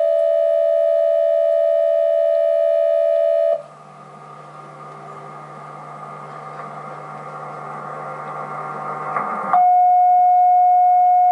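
Emergency alert tones from a TV tornado warning: a loud steady electronic alert tone that cuts off about three and a half seconds in, then a quieter stretch of hiss and low hum that slowly swells, and about nine and a half seconds in a single loud steady alert tone starts, like a weather radio alert tone.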